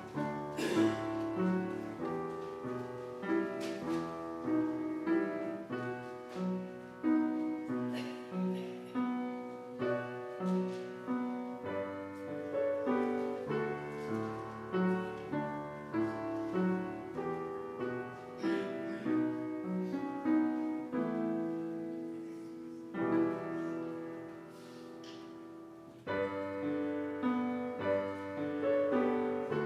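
Piano playing a slow, quiet piece note by note; it fades away about three-quarters through and starts up again a few seconds later.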